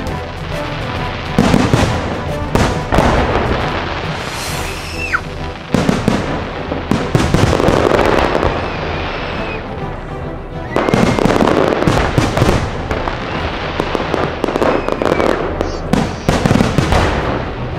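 Aerial fireworks show: dense crackling and repeated bangs coming in waves, with short whistles gliding in pitch, one falling clearly about five seconds in, over show music.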